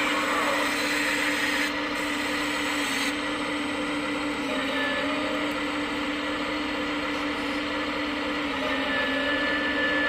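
Hydraulic pump of a 1/14-scale RC Volvo 360L excavator running with a steady whine while the boom swings and the bucket digs into soil. The whine sags slightly in pitch near the end, and a thin high whistle comes in briefly around halfway and again near the end.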